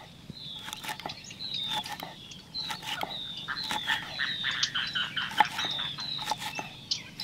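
Many short, high chirping calls, each dipping slightly in pitch, repeating several times a second. Scattered sharp taps, likely a knife on a wooden chopping board as green chillies are cut.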